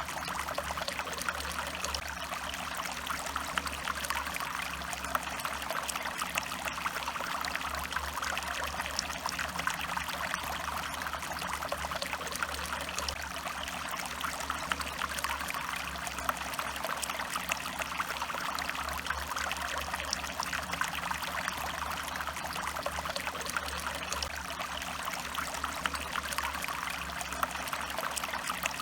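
A stream of water flowing and trickling steadily, with fine splashing.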